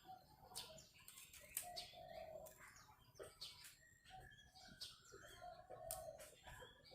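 Faint short chirps and calls of small birds, with scattered light clicks and flutters.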